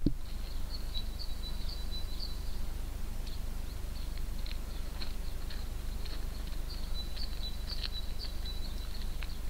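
Wind on the microphone as a low steady rumble, with faint high chirps and ticks scattered throughout and a single click at the very start.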